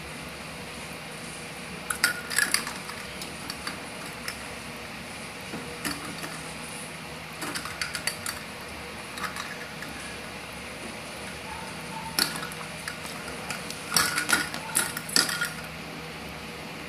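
Cat batting a toy ball about inside a metal wire crate: scattered bursts of short, light clinks and rattles, the busiest cluster about fourteen seconds in, over a steady low hum.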